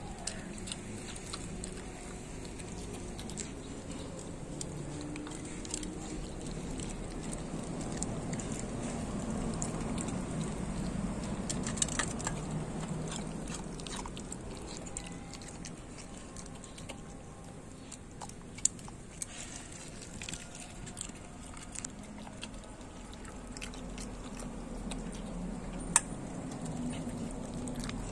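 A dog chewing and nosing sliced roast pork in a stainless steel bowl, with a few sharp clicks scattered through.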